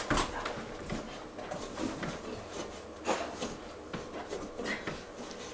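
A dog working a metal scent-detection board, with irregular short scrapes and knocks as its muzzle and body rub against the metal and glass and it sniffs at the holes.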